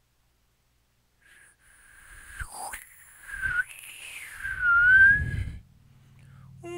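Flute played with extended techniques. After about a second of silence, a thin, airy, whistle-like tone comes in, wavering and bending around one pitch over breath noise. It is loudest about five seconds in, with a low breathy rumble beneath it.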